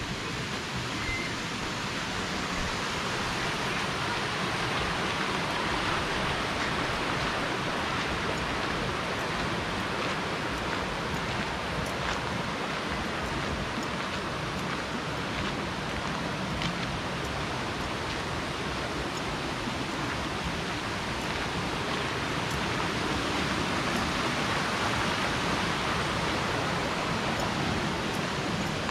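Steady rushing of a stream running over rocks, an even hiss without breaks.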